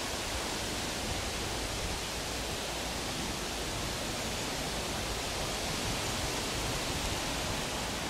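Steady outdoor hiss with a low rumble underneath, even in level throughout.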